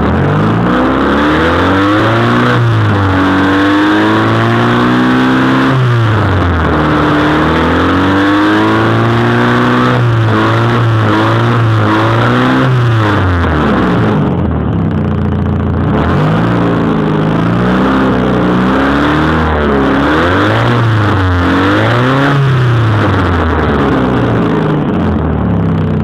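1992 Honda Accord's four-cylinder engine revved up and let back down again and again, some revs held high for a few seconds, running with an exhaust leak.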